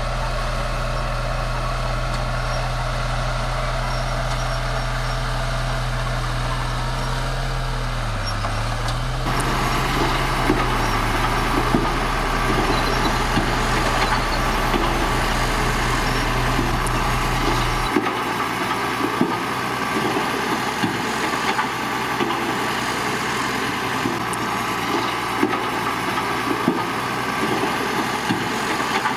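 Bulldozer diesel engine running steadily, its pitch dipping briefly about eight seconds in. Soon after, a rougher clattering noise with scattered metallic clanks joins it. Past the middle the deep engine drone drops away while the irregular clanks go on.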